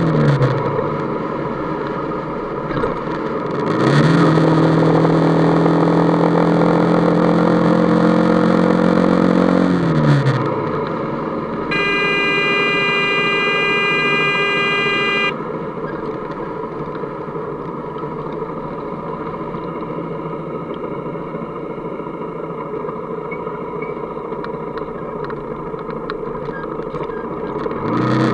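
Motorcycle engine pulling hard, its pitch rising for about six seconds, then falling away. A steady horn sounds for about three and a half seconds near the middle. After it comes quieter, steady road and wind noise, until the engine picks up again near the end.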